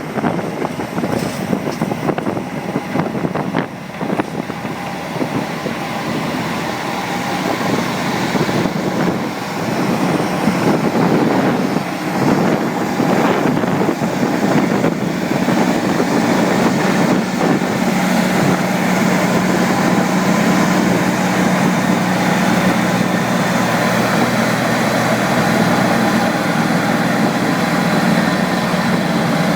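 Diesel engine of heavy farm machinery running steadily, growing a little louder and settling into a steady low drone from about halfway.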